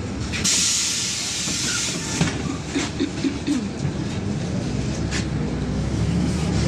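Interior of a LiAZ-5292.21 low-floor city bus: a loud burst of compressed-air hiss from the bus's air system lasts about two seconds, over the steady low rumble of the engine and running gear. After it come several knocks and rattles from the body and fittings.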